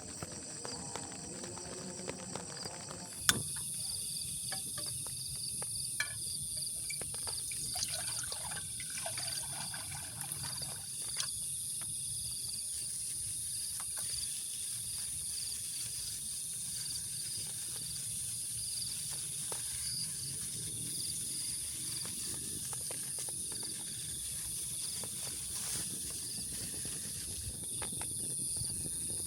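Insects chirping steadily in a high-pitched, pulsing drone, with a few sharp clicks, the loudest about three seconds in.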